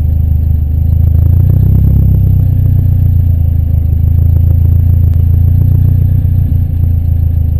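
Car engine running with a deep, steady rumble, picked up by a GoPro HD HERO2 in an open-back case on a suction-cup mount; the pitch rises slightly about a second in.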